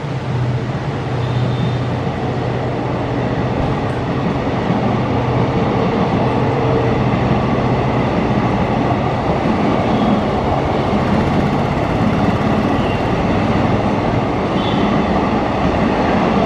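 A train running on the track, a continuous loud rumble of wheels and coaches that grows slightly louder in the first few seconds.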